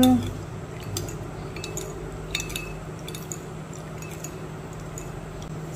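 Metal spoon clinking lightly and irregularly against a small glass bowl while stirring a sauce, over a steady low hum.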